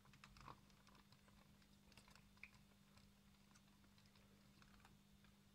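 Near silence: faint, scattered plastic clicks and ticks as the LEGO V-19 Torrent's gear-driven wing mechanism is worked by hand, over a steady low hum.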